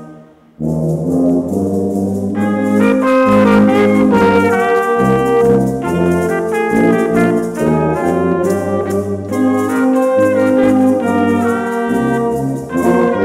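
A brass-led ensemble playing, with trumpets and trombones carrying the melody. The music drops out for about half a second at the start, then the full band comes back in and plays on.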